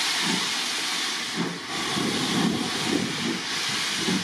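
Steady loud hiss of steam escaping from the LMS Ivatt Class 2MT steam locomotive 46512, with irregular low rumbles underneath.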